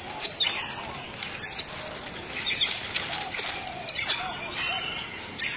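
A monkey squealing in short, high squeaks, repeated every half second to a second, with rustling and scraping of dry palm fronds as it struggles against a snake coiled around its body.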